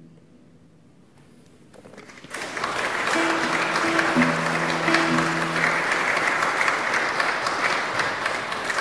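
The last notes of a classical guitar fade away, and after about two seconds of quiet an audience starts applauding, steady clapping that stays loud.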